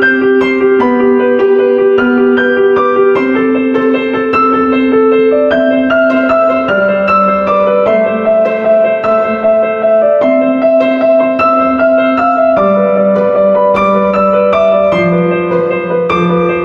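Instrumental piano music: quick notes played over held chords that change every second or two.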